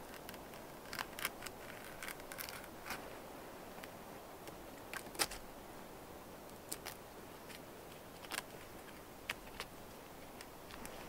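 Knife blade cutting and scraping at the bark of a thin birch trunk: scattered short clicks and scrapes, the loudest about five seconds in.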